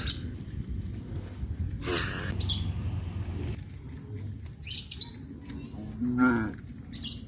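Cattle lowing low in the throat, with one short moo that falls in pitch about six seconds in. Small birds chirp briefly several times in between.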